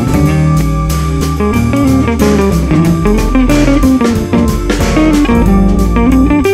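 Background music led by guitar, with bass and drums keeping a steady beat.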